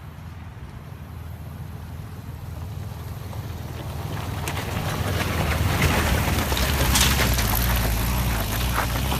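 VW bus engine running and growing steadily louder, with a rising rush of noise and clicks and rattles that is loudest about six to seven seconds in, as the bus drives over rough ground.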